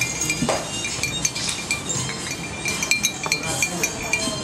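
Metal straws stirring green tea in glass mason jars, tapping and clinking against the glass in a run of repeated light clinks.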